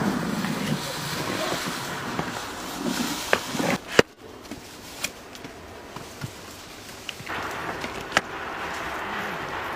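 Bare feet scuffing and stepping over dry leaves, dirt and stone, with rustling and scattered sharp clicks and knocks. The sound breaks off abruptly about four seconds in, then carries on quieter.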